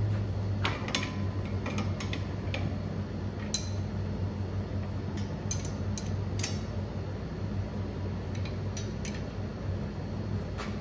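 About a dozen scattered metal clinks and knocks of hand tools against the steel driveshaft as it is pried free, one near the start ringing briefly, over a steady low hum.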